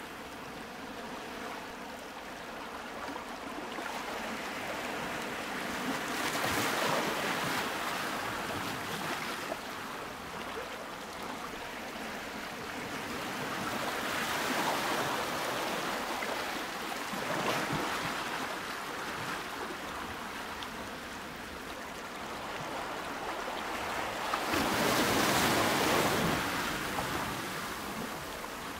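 Ocean waves washing in, the rushing noise swelling and easing every several seconds, loudest near the end.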